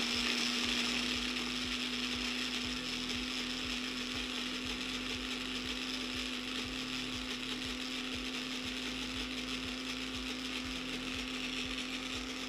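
Small electric food processor running steadily at one speed, a constant motor hum with a whir, as it chops fresh herbs, garlic and oil into a green dressing.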